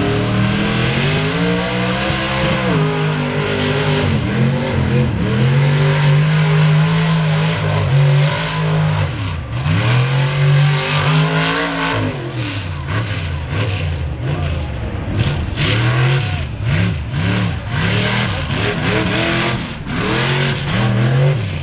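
Lifted Chevy S-10 Blazer mud truck's engine revving hard on a mud race track, its pitch climbing under acceleration and dropping off repeatedly. In the second half the revs rise and fall in quick bursts, about once a second, with sharp crackles over the top.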